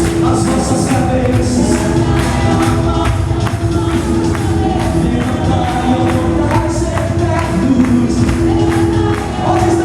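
Worship music: singing over held notes, with a steady percussion beat.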